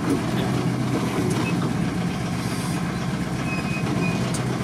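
Volkswagen Transporter T3 van crawling in first gear along a rough, rutted dirt track, heard from inside the cabin. Its engine makes a steady low drone, with a few faint knocks from the bumps.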